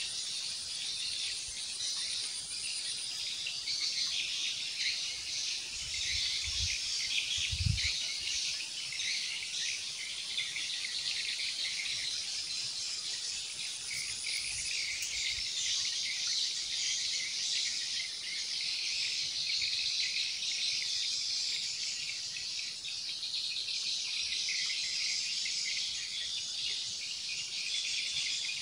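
Dense, steady chorus of insects buzzing and chirring, with a few dull low thumps about six to eight seconds in.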